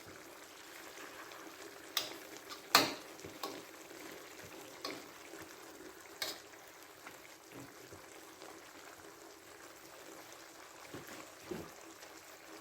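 Chicken stir-fry simmering in an uncovered pan with a faint steady sizzle. A few sharp clinks of a utensil on the pan come in the first six seconds, the loudest about three seconds in.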